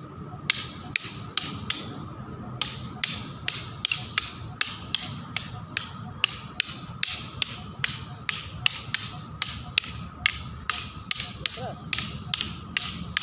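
Practice sticks clacking against each other in a partnered stick-fighting drill, a sharp crack about two to three times a second in a steady, slightly uneven rhythm.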